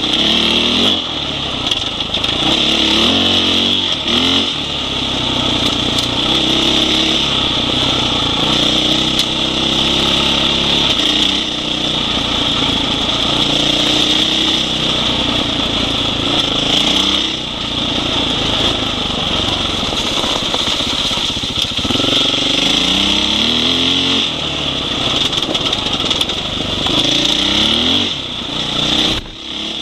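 Husqvarna 501 Enduro's single-cylinder four-stroke engine under way on a trail, its note rising and falling with the throttle, with several rising sweeps as the bike accelerates.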